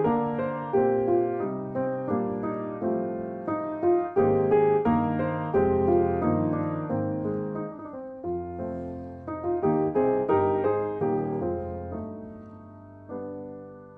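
Background piano music: a melody of struck notes over sustained chords, each note ringing and dying away, growing softer over the last couple of seconds.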